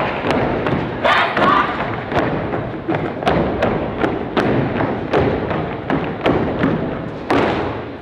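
A step team stepping: unison stomps and claps on a stage floor, about two to three sharp hits a second in a fast, uneven rhythm, over crowd noise. The last hit lands shortly before the end.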